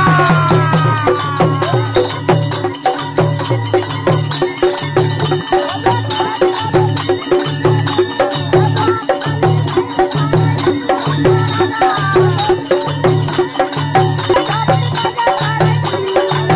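Rajasthani folk music: a dholak drum keeps a steady beat, a morchang (jaw harp) twangs over it, and a man sings with gliding notes.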